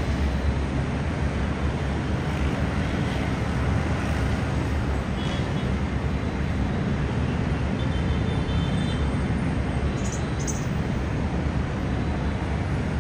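Steady low rumble of dense city traffic on a multi-lane avenue, with a couple of brief faint high squeals about ten seconds in.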